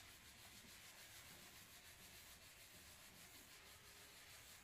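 Faint, steady rubbing of a cloth wiped over stained wooden panels.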